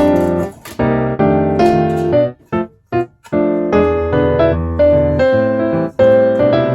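Background piano music, a keyboard melody over chords, with a brief break in the middle.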